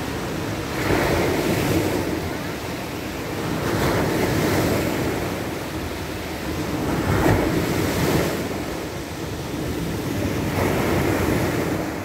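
Sea waves breaking and washing up a pebble beach, the surf swelling and falling back about four times, roughly every three seconds.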